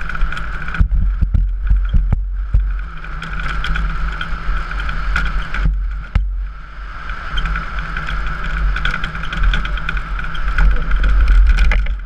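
Onboard sound of an engineless soapbox racer rolling fast downhill: wind buffeting the microphone over the rumble of its wheels on the road, with short knocks and rattles from bumps. The noise thins out briefly about a second in and again about six seconds in.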